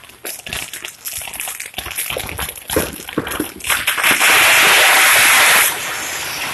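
Consumer fireworks going off close by: fountains spraying and shots rising, with rapid crackling pops. About four seconds in comes a loud rushing hiss for about a second and a half, loud enough to overload the recording, and then it settles back to a steadier hiss.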